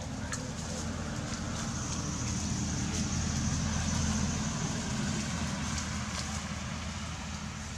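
Low engine rumble of a passing motor vehicle, swelling toward the middle and easing off again, under a steady high-pitched hiss.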